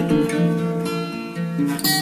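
Background music of plucked and strummed acoustic guitar.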